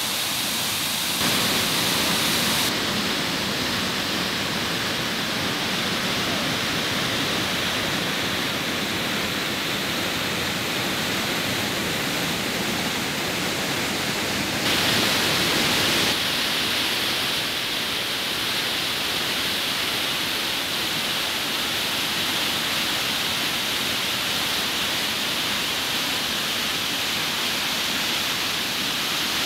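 Steady rush of a waterfall and fast-flowing stream, whitewater pouring over rock. Its sound shifts abruptly a few times, with two short louder, hissier stretches, about 1 second in and about halfway through.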